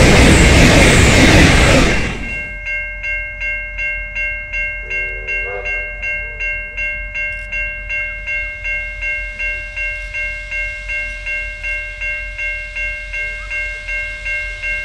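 A V/Line VLocity diesel railcar passes close by, loud, for about two seconds. Then the sound drops suddenly to a railway level crossing bell ringing steadily, about two and a half strokes a second.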